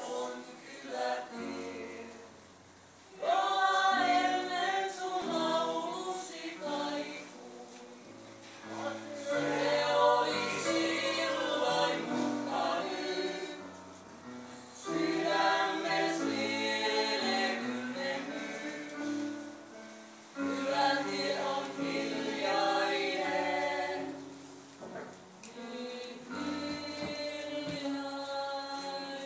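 A group of voices singing together in a choir-like blend over instrumental accompaniment with a moving bass line. The song comes in phrases a few seconds long, each swelling up and then dropping back in a short break.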